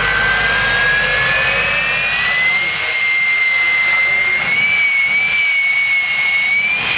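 Jet engine of a jet-powered semi tractor truck running loud, its whine rising in pitch over the first two seconds or so, then holding steady with a slight waver.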